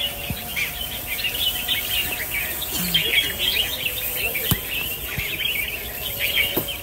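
Many small birds chirping at once: a dense chorus of short, high calls overlapping without pause.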